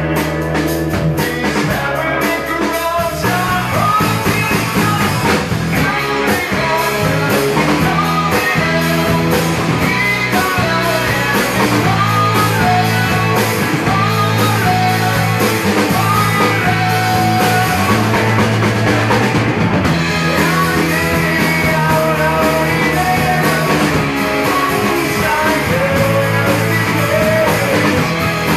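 Live rock band playing: electric guitars and drums, with a man singing into the microphone.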